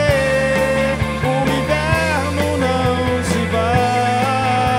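Live rock band playing an instrumental passage with electric guitars, electric bass and drums. Over them a melody line holds notes that bend up and down, then waver.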